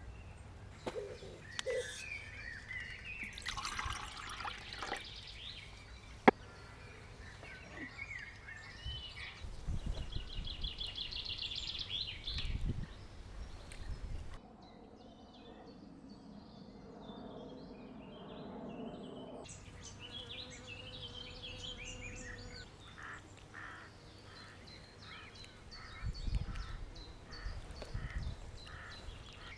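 Wild birds singing and calling, several different songs, with a fast trill about ten seconds in. A single sharp click about six seconds in is the loudest moment.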